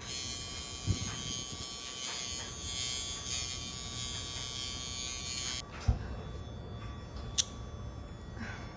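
Casfuy two-speed electric pet nail grinder running steadily as it files a puppy's nails, then switching off about two-thirds of the way through. A sharp click comes near the end.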